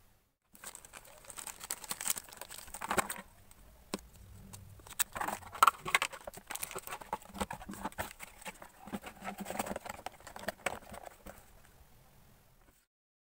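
Clear plastic packaging crinkling and rustling, with irregular clicks and taps, as hands unwrap a cable from its bag and handle the cardboard box. It starts about half a second in and cuts off abruptly near the end.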